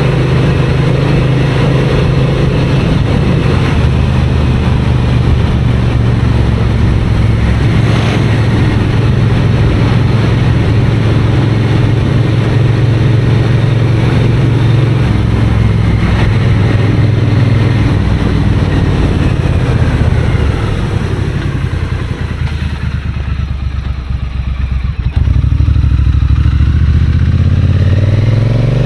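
Triumph Bonneville parallel-twin engine and exhaust on the move, running at a steady pace. About two-thirds of the way through the engine eases off and goes quieter, then comes back on strongly, with revs rising near the end.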